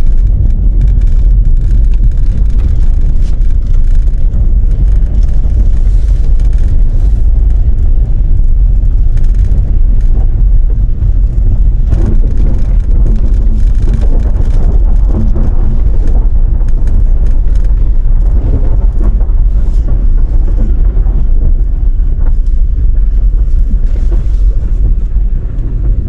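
Car driving at speed, with a steady low rumble of road and engine noise.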